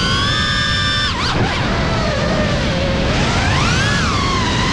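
Brushless motors and propellers of a Cinelog35 ducted FPV cinewhoop whining, the pitch rising and falling with the throttle. About a second in the pitch drops sharply and snaps back up as the throttle is chopped and punched; it then sinks low for a second or so before climbing again near the end.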